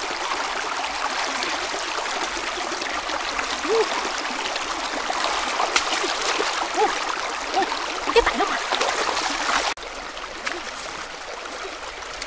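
Shallow rocky river flowing, with splashing and short gurgling plops of water as a woven bamboo fish trap is lifted out of it. The water noise turns suddenly quieter near the end.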